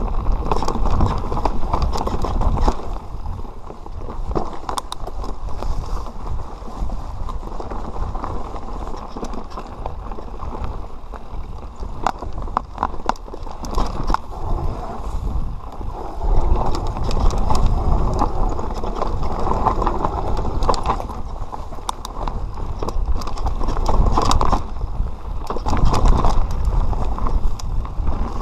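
Enduro mountain bike descending a rough dirt singletrack: tyres rolling over dirt and stones, with frequent knocks and rattles from the bike over bumps.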